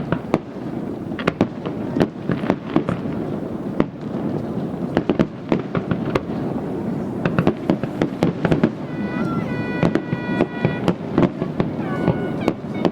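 Fireworks display: a dense run of sharp cracks and bangs from shells bursting, over a continuous low rumble. In the last few seconds some held tones sound above the crackle.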